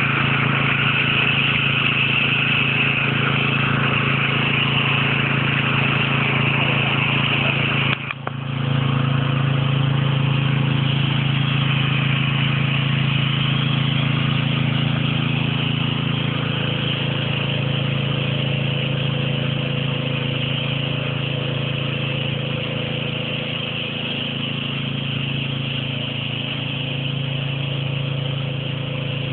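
Small engine of a portable water pump running steadily at constant speed, with water gushing and splashing from the pipe. The sound drops out briefly about eight seconds in.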